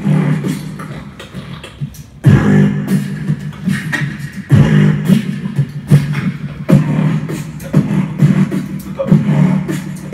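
Beatboxing into a handheld microphone: sharp vocal drum hits and clicks over a low sustained hum.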